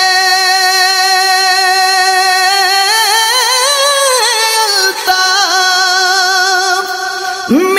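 A single singing voice sustains a long, wavering note in an Urdu naat, drawing out the last syllable of the line. Its pitch swells upward and falls back in the middle, and a new sung phrase begins near the end.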